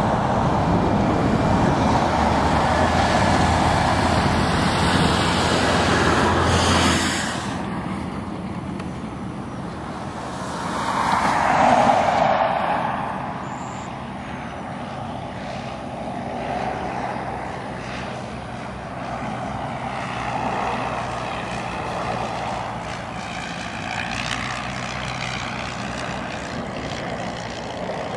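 A light single-engine propeller plane's engine droning across the airfield. The drone is louder for the first several seconds, drops suddenly, swells to its loudest about 12 seconds in, then settles to a steadier, fainter drone.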